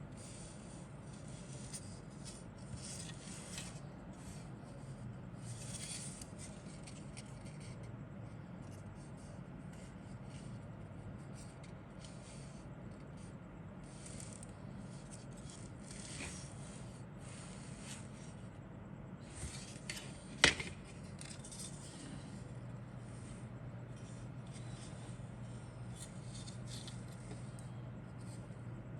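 Intermittent rustling and scraping of plastic model-kit parts and packaging being handled, over a steady low hum. One sharp click or tap about twenty seconds in.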